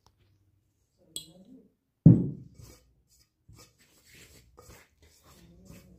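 Kitchen handling sounds: a sharp click, then a heavy thud about two seconds in, followed by scattered light knocks and rustles of bowls and containers being handled.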